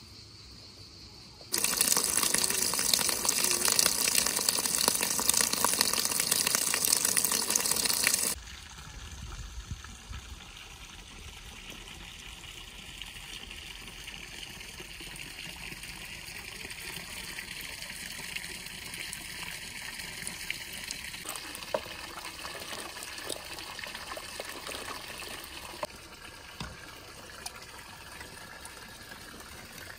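Spring water running into a stone trough. It is loud and gushing for about seven seconds, starting and stopping abruptly, then settles to a quieter steady flow.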